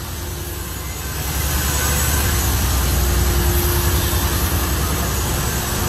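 Machinery running with a steady low rumble; a thin steady hum comes in about three seconds in.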